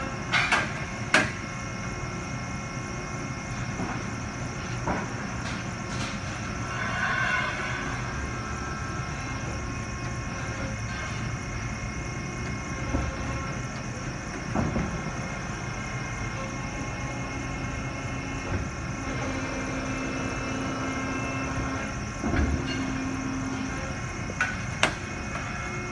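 Fasti 225-32-6 servo-hydraulic CNC folding machine running with a steady hum, with sharp metal clanks every few seconds as sheet metal is handled, clamped and folded. A low tone comes and goes twice in the second half.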